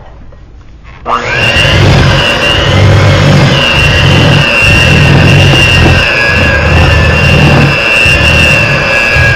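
Handheld electric mixer switched on about a second in, its motor whining up to speed and then running steadily. The beaters churn thick brownie batter in a glass bowl, with a low churning that swells and dips every second or so.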